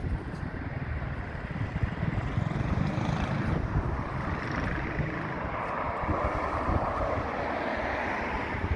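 Wind buffeting the microphone over a steady rushing background noise, with a broader swell of noise about six seconds in.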